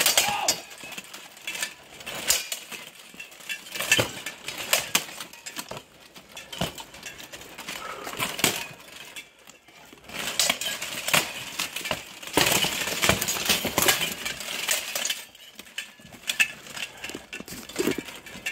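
Steel plate armour clanking and rattling as two armoured fighters spar, with flurries of sharp metal-on-metal strikes from weapon blows on armour and a shield, and a brief lull about halfway through.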